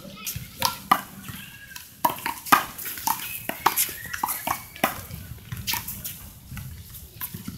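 Small rubber handball being slapped by hand against a concrete wall and bouncing on the court. It makes a string of sharp smacks at irregular intervals.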